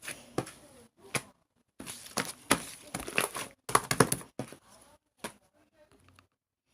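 Slime being squeezed and worked by hand, giving off irregular crackling and popping clicks that thin out near the end.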